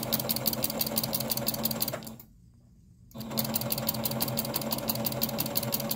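Domestic electric sewing machine stitching through layers of terry cloth with a quilting foot: a fast, even run of stitches over a steady motor hum. It stops for about a second about two seconds in, then starts up again.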